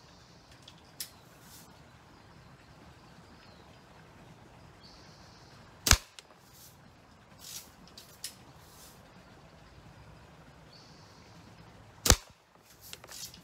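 Two sharp shots about six seconds apart from a Daisy Model 10 BB gun fired at a cardboard shoebox target, with a few fainter clicks in between and near the end.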